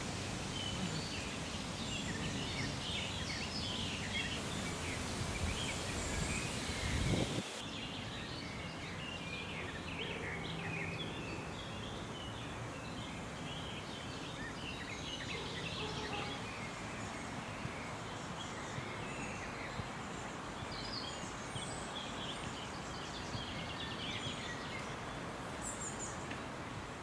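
Birds chirping in short, scattered calls over a steady outdoor background hum at a pond, with a brief low rumble about seven seconds in.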